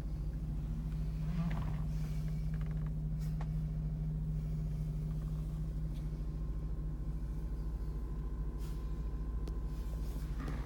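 Audi RS4's 4.2-litre V8 idling steadily, a low even hum with a few faint ticks over it.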